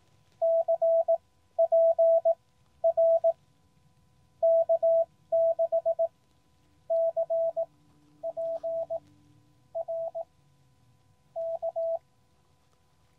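Morse code (CW) from a QCX Mini transceiver: a single steady tone keyed in dits and dahs, sent in separate character groups. It is a chaser's callsign, K6CPR, coming in, which the operator copies by ear.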